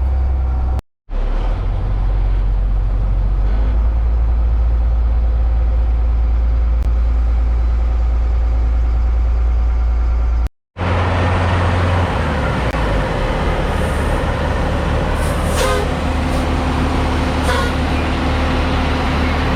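Heavy diesel farm machinery engine running steadily with a deep, even drone. The sound cuts out abruptly twice, and after the second break it comes back with a busier, noisier texture.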